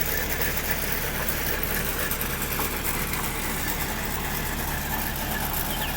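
Engine of a borewell drilling rig running steadily: a constant low hum with a hiss over it.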